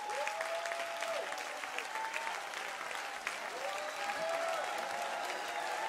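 Audience applauding, with cheers and whoops rising and falling above the clapping.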